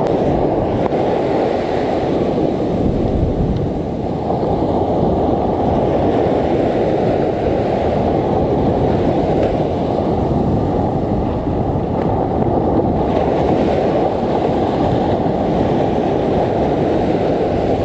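Big surf breaking on the beach, mixed with wind buffeting the microphone: a loud, steady rushing noise without a break.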